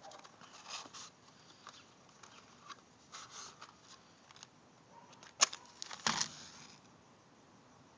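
Light handling noises: scattered small rustles and clicks, with one sharp click about five and a half seconds in and a short hissy burst just after.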